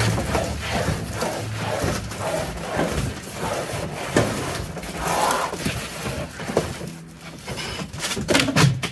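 Large cardboard box holding a portable air conditioner being shifted, dragged and lifted, with irregular scrapes, rustles and knocks.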